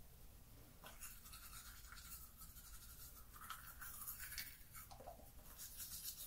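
Teeth being brushed with a manual toothbrush: faint, quick back-and-forth scrubbing strokes of the bristles, starting about a second in.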